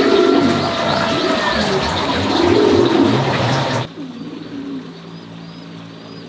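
Two low cooing bird calls, dove-like, over a loud hiss that cuts off suddenly just before the middle. After it there is a fainter, wavering high chirping.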